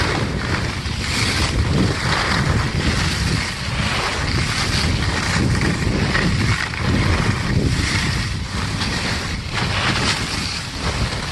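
Wind rushing over the microphone of a camera skiing downhill, with the hiss and scrape of skis carving on snow that swells and fades with the turns.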